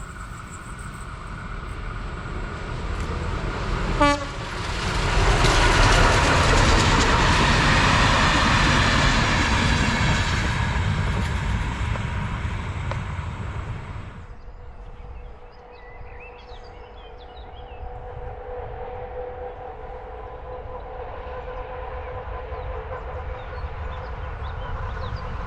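A train passing close by: a sharp crack about four seconds in, then loud rushing and rattling of the wheels and cars that slowly falls away and drops off suddenly a little after the halfway point. A quieter steady hum follows.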